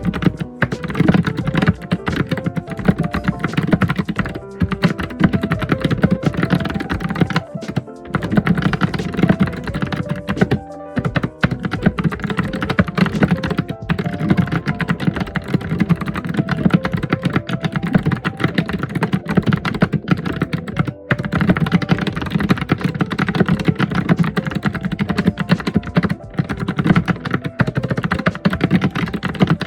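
Fast, continuous typing on a computer keyboard: a dense stream of heavy keystrokes, with brief pauses about eleven and twenty-one seconds in. A melody plays softly underneath.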